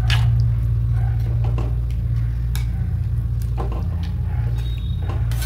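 Metal spatula stirring chunks of vegetable through thick milky curry in a pan: wet squishing with scattered light scrapes and clicks. Under it runs a steady low hum.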